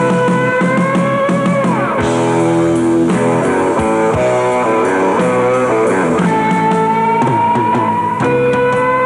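Rock band playing live. The electric lead guitar holds a long note that slowly bends upward and drops away about two seconds in. Choppy chords follow, then another long rising note starts about six seconds in, all over drums and cymbals.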